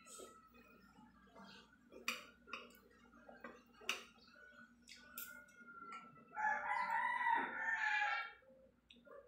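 Spoon and fork clinking a few times against a plate, then a rooster crows once about six and a half seconds in: one long call of about two seconds, the loudest sound here.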